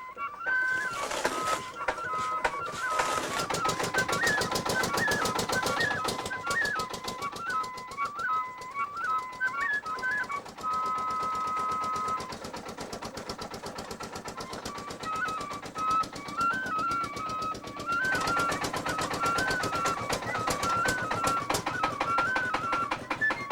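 Motor-driven chaff cutter chopping fodder with a rapid, steady clatter, under background flute music.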